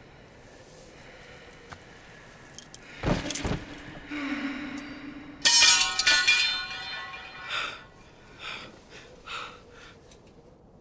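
Two heavy thumps, then a steel sword blade clattering onto stone and ringing as it falls, the loudest sound here. It is followed by a few short gasping breaths.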